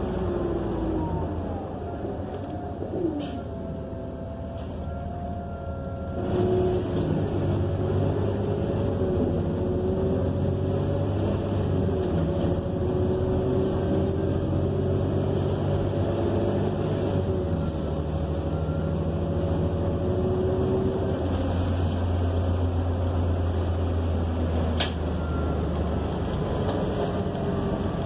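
Cabin sound of a New Flyer XN40 city bus underway: its Cummins Westport L9N natural-gas engine and Allison B400R transmission running with a whine that slowly rises and falls in pitch. The sound grows louder about six seconds in as the bus picks up speed.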